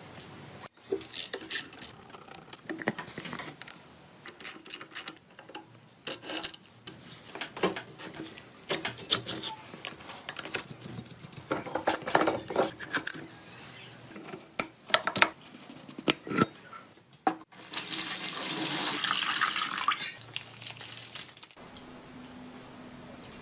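Metal parts and tools clinking and knocking on a bench at an uneven pace, then a loud hiss of spray for about three seconds.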